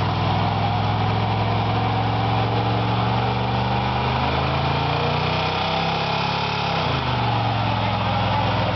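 Chevrolet 454 (7.4 L) big-block V8 in a one-ton pickup running steadily under load while the locked rear wheels spin in a burnout, with a hiss of tire noise. The engine pitch sags briefly about six seconds in and then picks back up.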